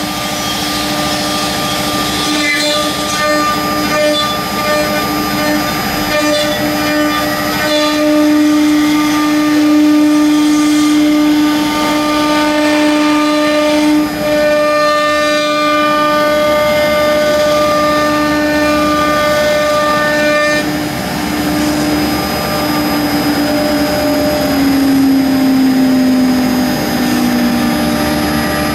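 Two-head CNC router engraving a wooden board, with the whine of both spindles and their cutters running steadily and shorter machine tones coming and going as the heads move. In the last few seconds the whine slides gradually lower.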